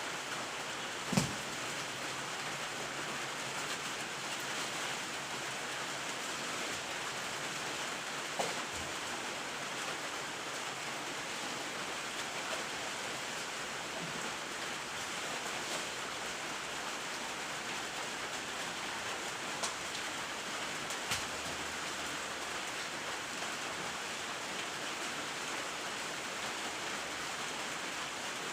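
Steady rain falling, an even hiss with no break. A few short knocks sound over it, the loudest about a second in.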